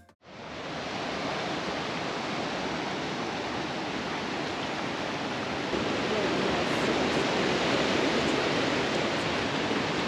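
River water rushing steadily across and over the edge of a low concrete ford, a continuous spilling sound that grows a little louder about six seconds in.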